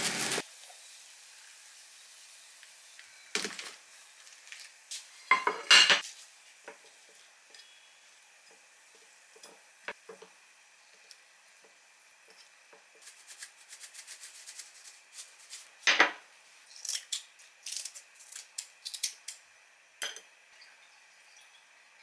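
Metal kitchen tongs clicking and clinking while serving pieces of glazed meat into a ceramic dish, with a few louder clunks of utensils and food against the dish.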